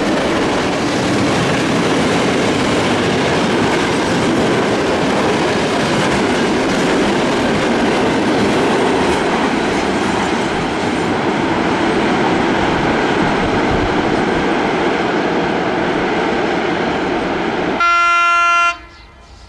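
Freight train of hopper wagons rolling past close by at speed, a steady rumble of steel wheels on jointed rail. Near the end comes one short train horn blast, and then the sound drops away abruptly.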